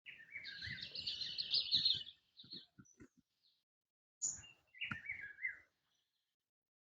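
A songbird singing: a fast run of quick notes lasting about two seconds, then a shorter phrase about four seconds in that opens with a sharp high note.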